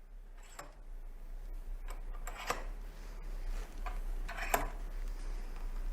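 Bench vise and its jaws being worked to clamp a sharply tapered piece: a few scattered light metal clicks and taps, the clearest about two and a half and four and a half seconds in.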